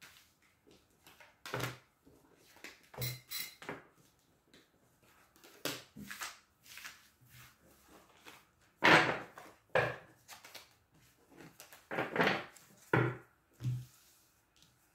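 Oracle cards being gathered up, squared and laid down on a cloth-covered table: a string of short taps, slides and rustles, the loudest about nine seconds in.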